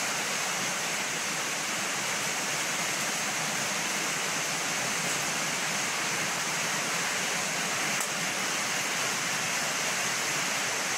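Water pouring from a garden hose into a plastic bucket, a steady rushing hiss with no breaks.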